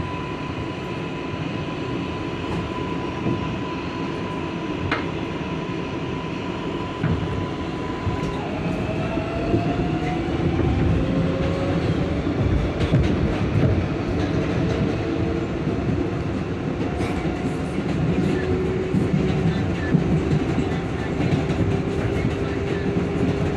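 Interior of a New York City 7 train subway car in motion: a continuous rumble and rail noise. A steady whine gives way, about eight seconds in, to several slowly rising tones as the noise grows slightly louder.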